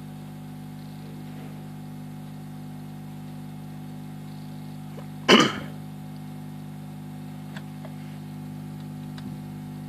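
Fender Bassman tube amplifier idling with a steady mains hum through its speaker, while a 0.022 capacitor is held on pin 3 of the V2 tube to trace an intermittent noise. A single loud, short cough-like burst comes about five seconds in.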